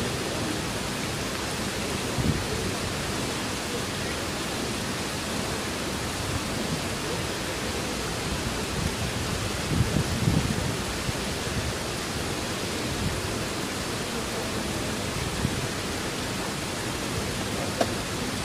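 Steady, even hiss of a hushed diving hall's background noise, with a few faint low murmurs around two and ten seconds in.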